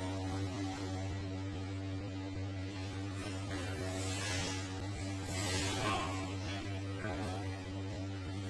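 Steady electrical hum: a low drone with a second, higher steady tone above it, and a few faint soft noises over it.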